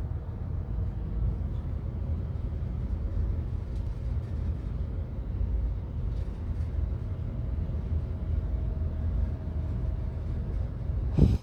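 Steady low background rumble, with a few faint breath sounds. Near the end comes one short, sharp voiced catch of breath from a man, the hitching gasp that leads up to a sneeze.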